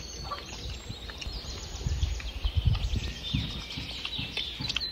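Small birds chirping in quick, high calls, with a few dull low thumps about two to three seconds in.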